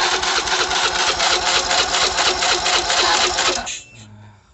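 Fuel-injected motorcycle engine cranked on its electric starter for about three and a half seconds, turning over with an even rapid pulse but never catching, then the starter is released. This is a no-start with no injector clicking heard, which the owner takes for an injection fault.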